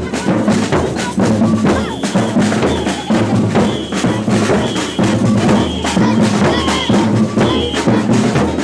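Batucada percussion band playing a steady samba rhythm: deep bass drums under a dense, rapid pattern of snare and wood-block-like hits, with a short high tone recurring about once a second.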